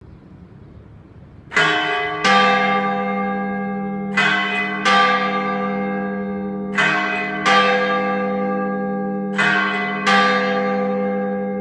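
Cathedral tower bells striking in four pairs, a higher note then a lower one about two-thirds of a second later, the pairs about two and a half seconds apart, with the lower bell's hum ringing on between strokes. The four double strokes sound the hour of four o'clock, heard up close from inside the belfry.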